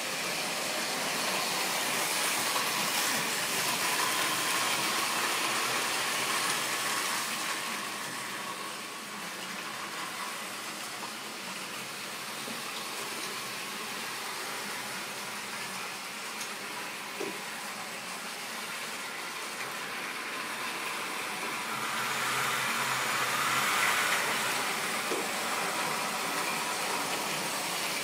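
Model train running on the layout's track: a steady rolling rattle and hiss of wheels and small electric motor. It swells twice, near the start and again near the end.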